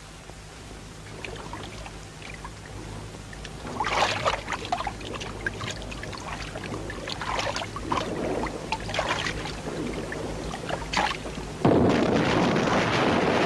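Water splashing and sloshing at the side of a small boat, in scattered splashes and drips. About three-quarters of the way in, a sudden loud rush of noise sets in and keeps going: an underwater mine blast throwing up a column of seawater.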